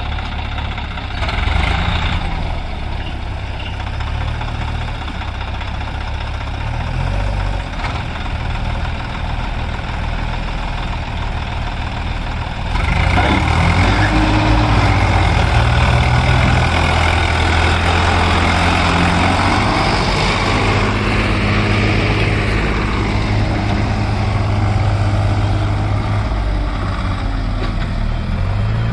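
The diesel engines of a Swaraj 744 FE tractor and a JCB backhoe loader run hard under load as the loader's bucket pushes the soil-laden trolley out of the mud. About halfway through, the engine noise turns louder and harsher.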